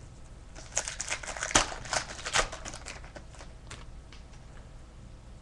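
2010-11 Playoff Contenders hockey cards being flipped and shuffled by hand: a quick run of rustles and snaps of card stock for about three seconds, then quieter.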